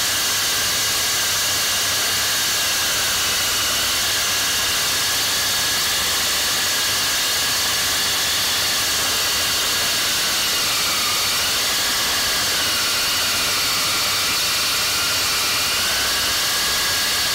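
RT-160 core drilling machine running under load as its core bit cuts into clinker brick, with a dust-extraction vacuum running at the same time: a steady loud grinding noise with a high motor whine. The whine sags in pitch briefly about two-thirds of the way through and again near the end, as the motor is loaded down by the cut.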